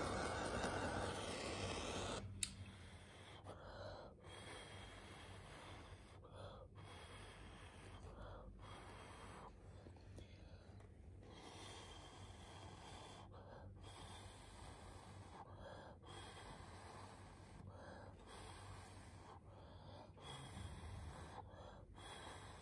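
Small handheld gas torch hissing as its flame plays over wet acrylic paint. It shuts off abruptly with a click about two seconds in, leaving only a faint hiss.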